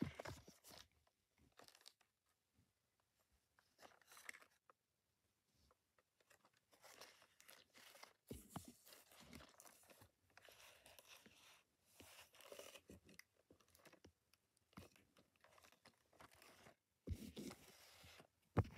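Gloved hands handling and turning a cardboard model-train box: faint intermittent rustling and scraping of the packaging, with a couple of louder soft knocks near the end.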